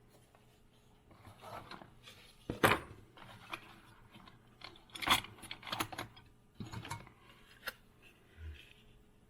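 Die-cast Dinky Toys No. 798 Express passenger train and its cardboard box being handled: scattered clicks, light metal knocks and rustling, the sharpest clicks about two and a half and five seconds in.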